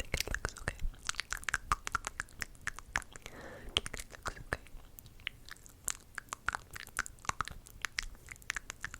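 ASMR mouth sounds: a fast, irregular run of wet clicks and smacks from the lips and tongue, with a short breathy hiss about three and a half seconds in.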